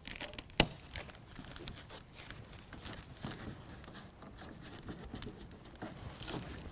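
Faint rustling and rubbing as an adhesive tape protector is peeled and a carpeted bed-liner pillar piece is pressed on by hand, with one sharp click about half a second in.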